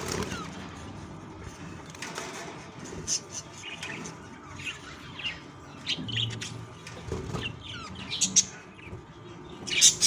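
Budgies chirping in the nest, chicks and a parent bird: short, high chirps scattered irregularly, some in quick clusters, growing busier and louder toward the end.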